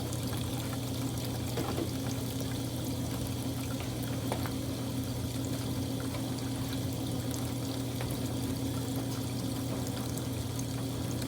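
Kuppet portable washing machine running: a steady motor hum with water splashing and pouring in the tub.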